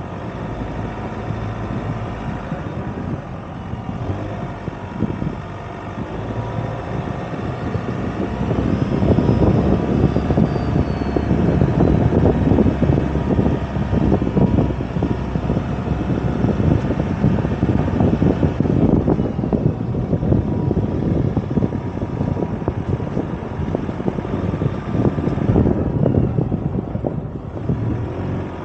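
Ford Ranger Raptor pickup driving slowly over a rough dirt mountain track: the engine running under steady tyre and road rumble. From about eight seconds in, a dense run of knocks and jolts from the uneven surface grows louder.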